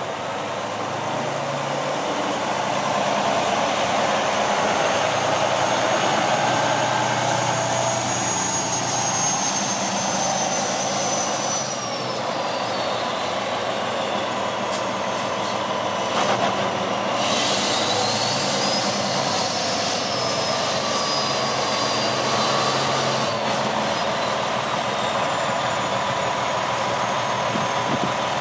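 Diesel engine of a 2007 Freightliner Columbia 120 day cab tractor running as the truck drives and maneuvers. A high whine falls away about twelve seconds in and climbs again a few seconds later.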